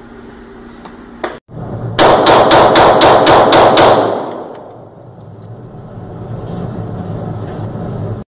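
Hi-Point C9 9mm pistol fired in a rapid string of about eight shots, roughly four a second, each loud crack running into the next, the echo dying away over the following second.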